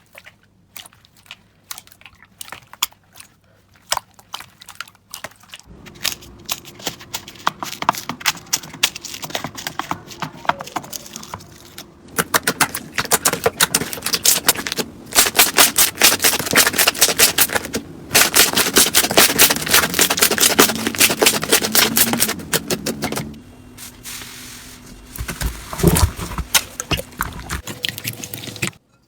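Slime being squeezed and stretched by hand, with dense crackling and popping of trapped air in several short clips, loudest in the middle.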